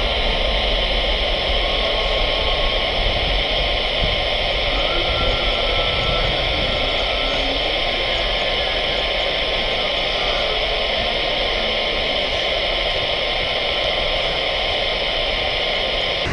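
Steady rushing roar of a twin-jet airliner's engines at takeoff power, heard from far off with little change.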